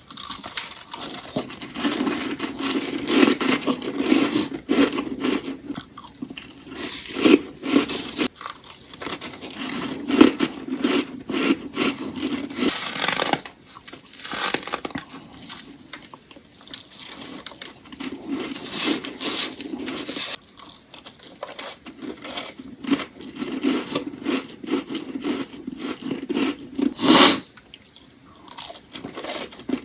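Close-miked crunching and chewing of powdery freezer frost, a steady stream of irregular crackles with one louder crunch near the end.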